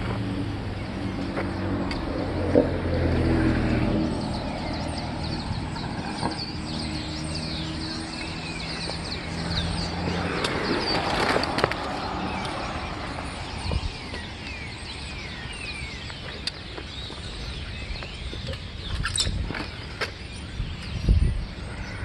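A large flock of birds calling all at once, a dense chatter of short chirps and squeaks. A vehicle engine hums underneath through the first half, and there is a low thump near the end.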